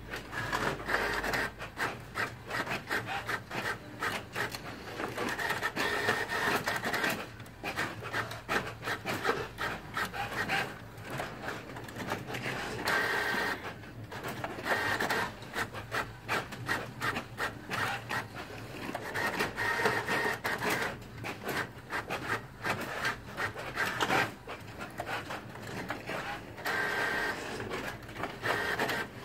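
Epson WorkForce WF-5620 inkjet printer printing pages: the print head carriage shuttles back and forth with rapid clicking and rubbing. A higher motor whine comes back about every six or seven seconds.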